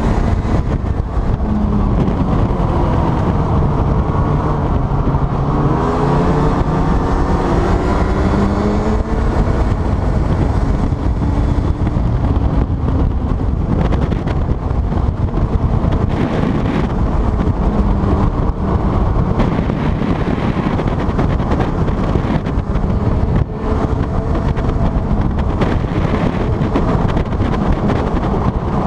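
A boat's engine running hard as the craft skims across lake ice. Its pitch wavers up and down for the first several seconds, then holds steady over a continuous rushing noise.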